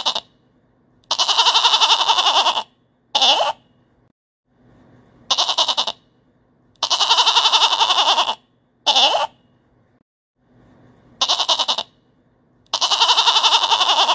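A goat bleating in sets of three: a short bleat, a long bleat with a rapid quaver, then a short bleat that drops in pitch. The same set repeats about every five and a half seconds.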